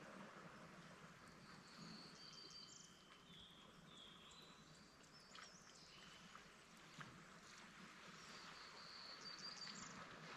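Faint, high-pitched chirping calls from wild animals, short level notes and quick trills in two spells, over quiet outdoor background hiss.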